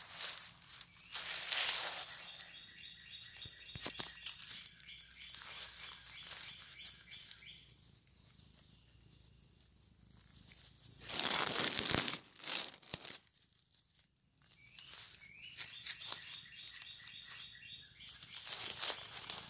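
Dry bamboo leaves rustling and crackling as a cat shifts and rolls on the leaf litter under a petting hand, in three louder bursts: near the start, about halfway and near the end. Faint high bird chirps in the background between them.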